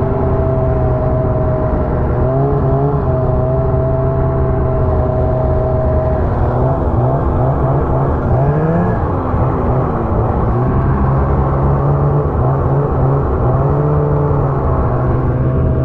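Ski-Doo snowmobile engine running hard under the rider, holding a steady pitch, then wavering up and down with throttle changes about halfway through before settling back to a steady note.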